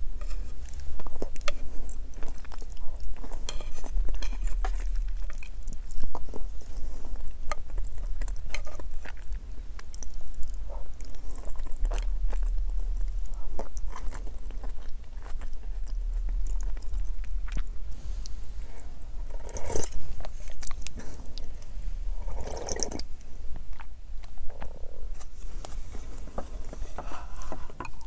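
Close-up eating sounds: a person sipping miso soup from a wooden bowl and chewing its vegetables, with many small clicks and soft, wet mouth noises.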